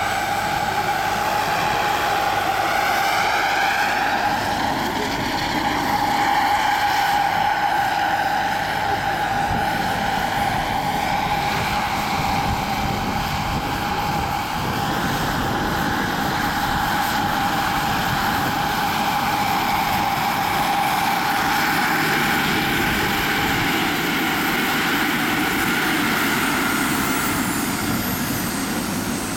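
Gas-turbine engine and main rotor of a large scale model MBB Bo 105 helicopter running, a steady high whine over rotor blade noise. Its upper tones slide in pitch as it flies past during the first half, and it is set down on the grass near the end with the turbine still running.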